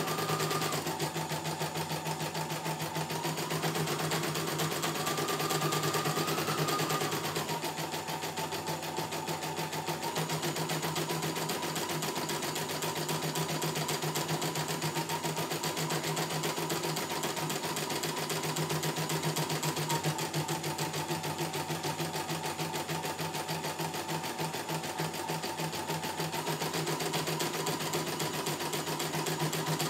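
CNY E900 computerized embroidery machine stitching a design, its needle running at a fast, even rate, with a motor whine that steps up and down in pitch a few times.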